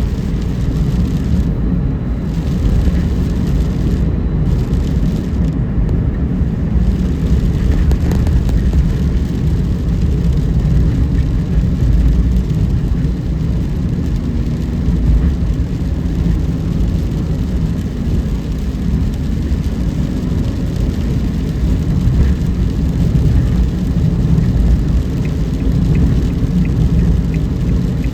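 Car driving at night: a steady low rumble of road and engine noise.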